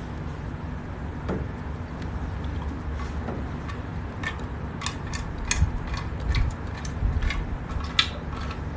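Water being filled into a CO2 laser machine's tank through plastic tubing: a low steady rumble, with a run of sharp clicks and ticks in the second half.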